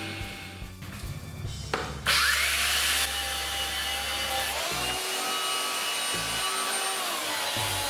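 Handheld belt sander starting about two seconds in and then running steadily as it sands the edge of a small wooden block, over background music.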